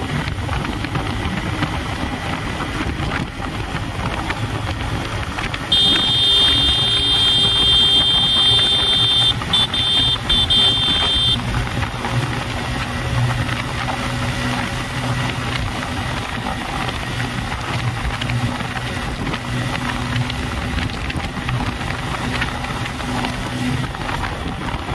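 TVS Raider 125's single-cylinder engine running at speed under hard acceleration, with heavy wind noise on the microphone. About six seconds in, a steady high-pitched tone sounds for about five seconds, breaking twice near its end.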